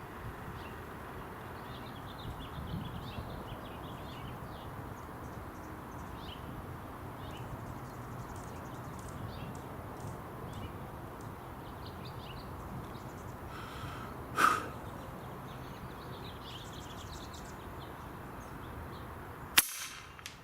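Steady wind noise on the microphone with faint bird chirps, broken by a short report about fourteen seconds in and a sharp crack near the end: two air rifle shots.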